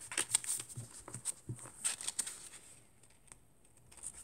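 Paper and card pages of a handmade junk journal being handled and turned: crisp rustles and light taps, quieting after about two and a half seconds.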